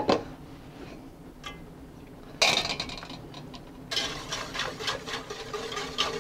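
Wire whisk beating stock into a roux in a stainless steel stockpot: a fast run of clicks and scrapes of the wires against the pot begins about four seconds in. Before it, a metal clank at the start and a louder clatter of cookware about two and a half seconds in.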